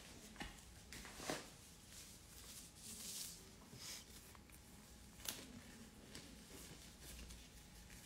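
Near silence: faint room tone with a few soft clicks and light handling sounds.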